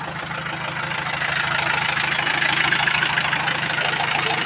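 Tractor diesel engine running steadily with an even firing beat, growing louder about a second in.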